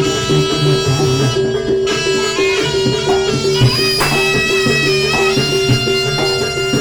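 Live jaranan gamelan music: a shrill reed pipe, the slompret, plays a held, wavering melody over a quick, evenly repeating pattern of low metallic notes and kendang drum strokes.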